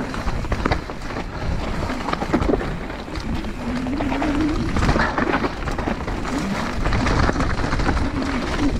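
Downhill mountain bike running down a dirt trail: a steady rush of wind and tyre noise with scattered clatter from the bike, and a short rising moan about halfway through.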